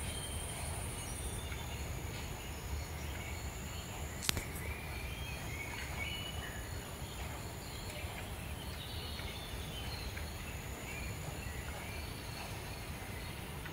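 Outdoor garden ambience: a steady high insect drone with short bird chirps scattered through it, over a low rumble. One sharp click about four seconds in.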